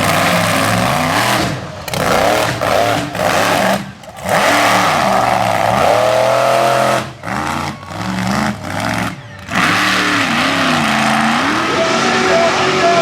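Mega truck's big engine revving hard through a mud bog run, its pitch swinging up and down again and again, dropping away briefly several times as the throttle is lifted.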